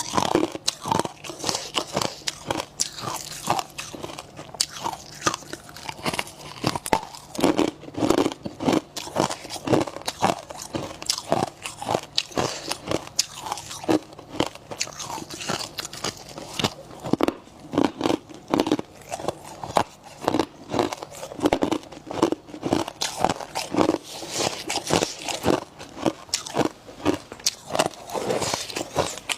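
Close-up biting and chewing of powdery freezer frost and crunchy ice: dense, irregular crunches, several a second, that go on without a pause.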